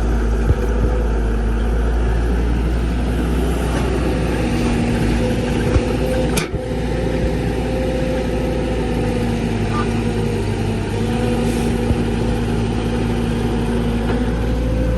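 Excavator's diesel engine running steadily under work, a constant low rumble with a steady hum.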